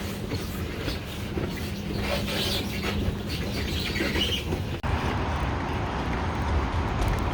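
Steady rumble of a moving vehicle with a low hum. About five seconds in it cuts abruptly to a different, hissier steady vehicle noise.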